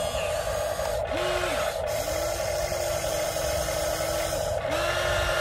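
Huina 1593 RC excavator's electric motors whirring as the arm and bucket work, with a lower motor tone that starts and stops three times: briefly about a second in, then for about two seconds, then again near the end.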